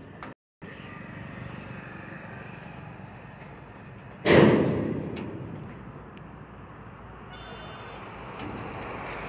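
Honda City sedan being moved out of an enclosed car-carrier truck over its steel deck: a steady hum, with one loud bang about four seconds in that rings out over about a second.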